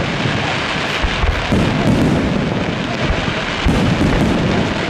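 Aerial fireworks shells bursting in quick succession: a continuous dense crackle with repeated low booms.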